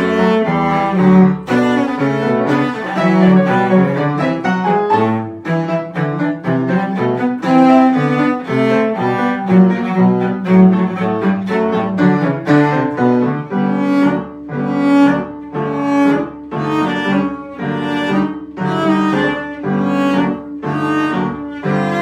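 Cello playing a march-like exam piece with piano accompaniment; in the second half the notes become short and detached, in an even march rhythm.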